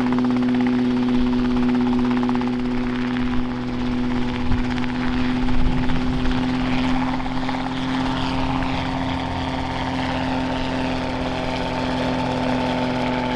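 RotorWay Exec kit helicopter hovering low and lifting off: a steady rotor and engine drone whose pitch holds constant, swelling a little louder for a few seconds in the middle.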